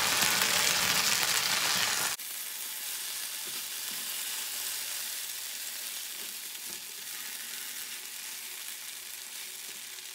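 Julienned potatoes sizzling in hot oil in a frying pan while being turned and stirred with a spatula, partway through frying once the undersides have gone golden. The sizzle drops suddenly to a quieter hiss about two seconds in.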